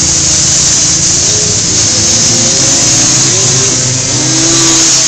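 ATV engine at full throttle accelerating down a dirt drag strip. Its pitch rises and it is loudest near the end as the quad passes close by.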